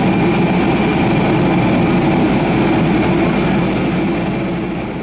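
Auxiliary power unit of a parked Airbus A320neo running: a steady turbine whine over a low rumble, fading out near the end.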